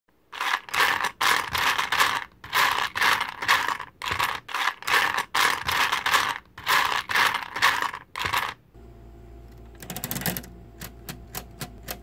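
Short bursts of clattering, about two a second, like small hard pieces rattling or keys being typed in flurries. They stop about three-quarters of the way through, and a low steady hum with a few sharp clicks follows.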